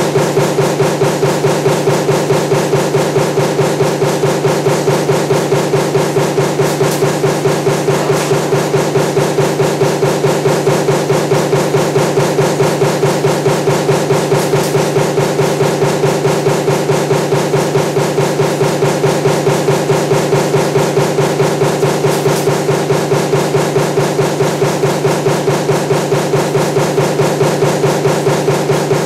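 Power stamping press running a progressive die for table fan motor laminations, punching continuously in rapid even strokes, about four a second, over a steady machine hum.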